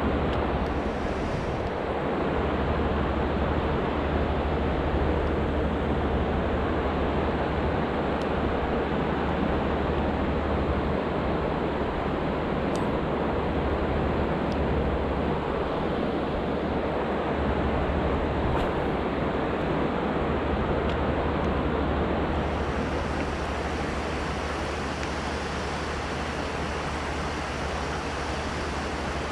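River water rushing steadily, with a few faint ticks.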